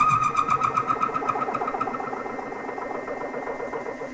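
Mini mill driving a stepped drill bit through a metal plate: a rhythmic chattering cut at about eight pulses a second, loud at first and easing after about two seconds.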